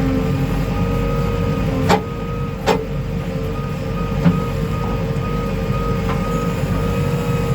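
A JCB 3DX backhoe loader's diesel engine running steadily. Two sharp knocks come about two seconds and about two and a half seconds in, and a lighter one follows a little after four seconds.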